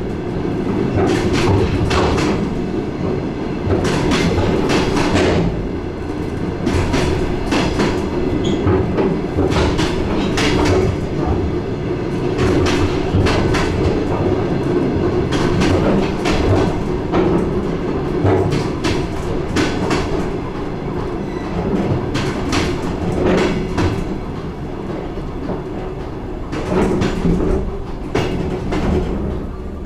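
DR1A diesel train running, heard on board: its wheels clatter over the rail joints in repeated sharp clicks over a steady running drone.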